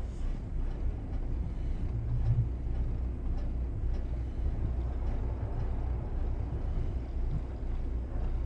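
Twin diesel engines of a Bayliner 4788 motor yacht running at low maneuvering speed, a steady low rumble that swells briefly about two seconds in.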